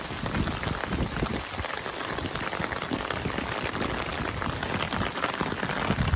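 Heavy rain falling hard: a dense, steady patter of drops, drumming on an umbrella close overhead.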